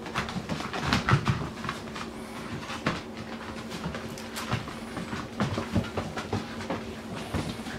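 Llewellin setter puppies' claws clicking and scrabbling on a tile floor in irregular bursts as they scamper and play, over a steady low hum.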